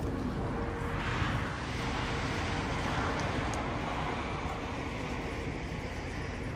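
Wind rumbling on the microphone at the seafront, with a broad rushing swell that rises about a second in and fades away over the next few seconds.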